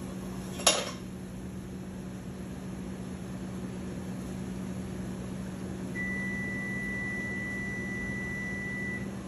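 A metal bowl clacks down over food on a flat-top griddle about a second in, over a steady kitchen hum. Near the end a microwave oven gives one long electronic beep lasting about three seconds.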